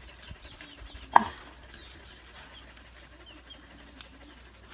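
Cleaver scraping the scales off a whole trevally on a stone: faint, repeated rasping strokes, with one sharp knock of the blade about a second in.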